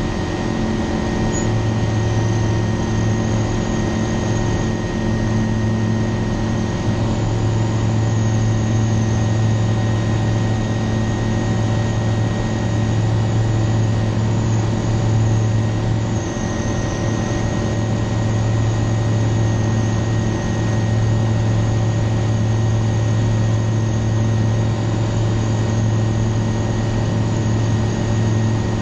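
Aeroprakt A22-LS Foxbat's Rotax 912 flat-four engine and propeller droning steadily at takeoff power through lift-off and the climb, a strong low hum with rushing air over it.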